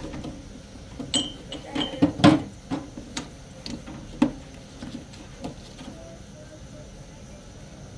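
Dish-washing: a metal tray being scrubbed by hand and knocking against the sink and a plastic dish rack, giving irregular clinks, knocks and scrapes. They are busiest in the first half and thin out after about six seconds.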